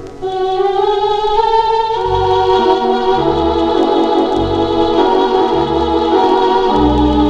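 Instrumental gospel music led by an organ with piano, a melody line rising over the first two seconds and a low bass note about once a second, played from a vinyl LP.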